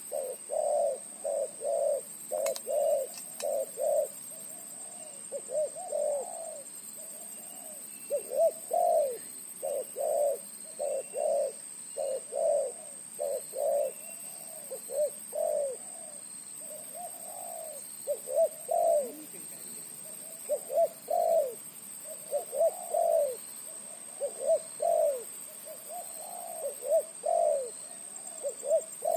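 A big-voiced spotted dove (terkukur) cooing over and over, each call a phrase of several deep, short coo notes. A faint steady high whine runs beneath the calls.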